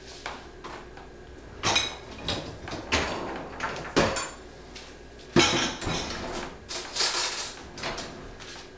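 Dishes clinking and clattering in a dishwasher's racks as the dishwasher is handled, a run of separate knocks and clinks. The loudest knock comes about five seconds in, as the dishwasher door is shut.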